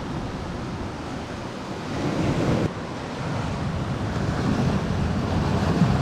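Sea surf washing and breaking against a rocky shoreline in uneven surges, with wind buffeting the microphone.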